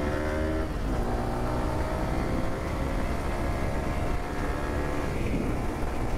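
Motorcycle engine accelerating. Its pitch climbs steadily, drops once about a second in as it shifts up a gear, then climbs again.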